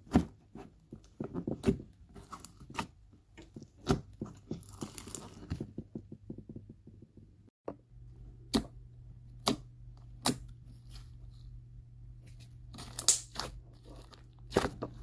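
Cereal-themed slime being squeezed, stretched and pressed by hand, giving irregular sharp clicks, crackles and small pops with some crunching. A faint steady low hum runs underneath in the second half.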